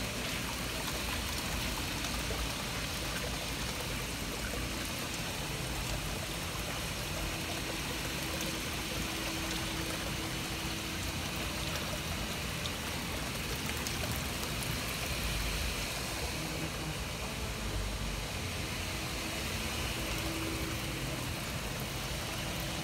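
Water-wall fountain: water sheeting down a stone wall and splashing steadily into the pool below.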